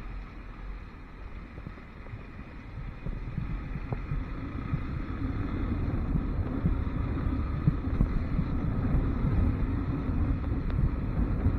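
Riding motorcycle: wind buffeting the microphone over the low running of the bike, growing louder about three seconds in as it picks up speed.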